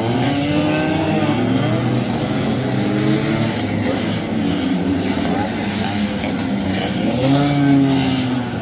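Racing Vespa scooters' two-stroke engines at high revs, their pitch rising and falling as they pass one after another.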